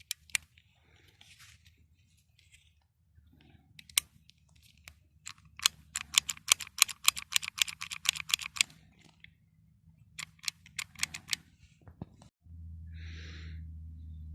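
Handling a pistol: sharp metal clicks, at one point a fast run of about six clicks a second for around three seconds, then a shorter run. A steady low hum comes in suddenly near the end.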